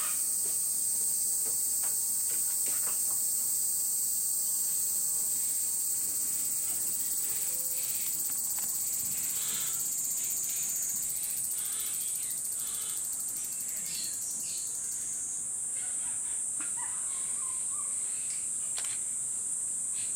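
A dense, steady high-pitched drone of summer insects, stepping up in pitch about halfway through and again a few seconds later, with a few faint clicks and chirps beneath it.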